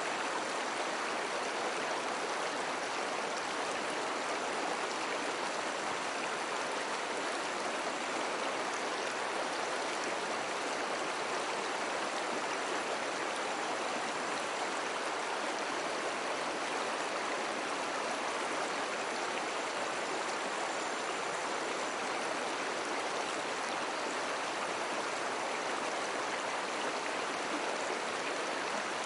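Slow river water flowing steadily over stones, a constant rushing and babbling with no change in level.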